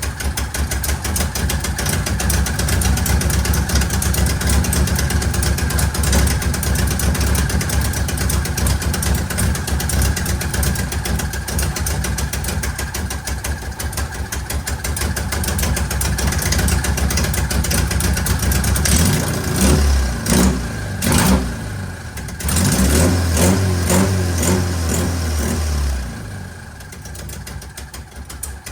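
Car engine running steadily, with a few louder surges about two-thirds of the way in, then dropping quieter near the end.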